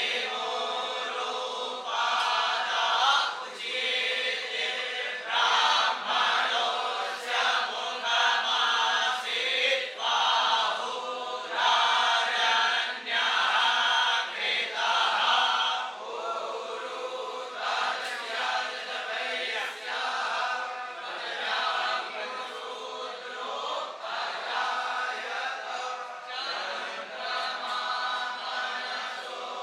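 A group of young Vedic students (batuk Brahmins) chanting Sanskrit mantras together in unison, in short repeated phrases.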